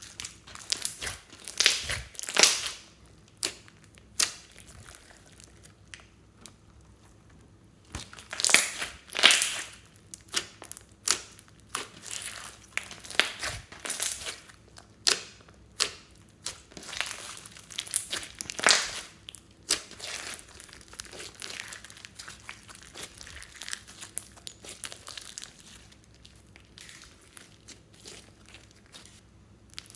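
Hands squishing, pressing and folding a large lump of glossy slime mixed with small beads, giving irregular clusters of short, sharp sticky sounds. Quieter stretches come about a fifth of the way in and again over the last few seconds.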